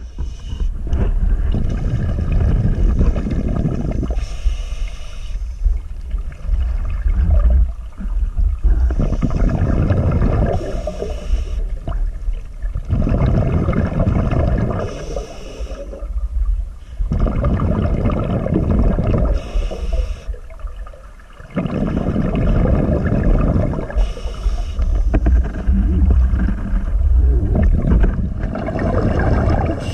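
Scuba diver breathing through a regulator underwater. A short hiss of inhaled air comes about every four seconds, and between them long rumbling surges of exhaled bubbles.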